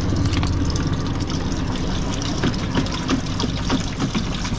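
Water running from a gravity-fed hose into a plastic hydroponic bucket, over a steady low hum. From about halfway in come irregular short splashes as the nutrient solution in the bucket is stirred.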